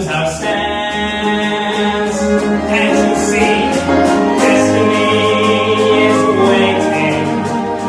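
Musical-theatre number: a small pit orchestra playing with ensemble voices singing long held notes.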